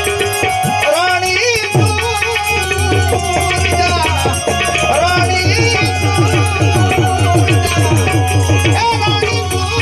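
Devotional bhajan music: fast, even hand-drum strokes with rattling percussion under a wavering melody line.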